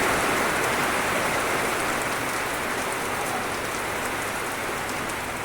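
Steady rush of flowing water, a dense even hiss that gradually gets a little quieter.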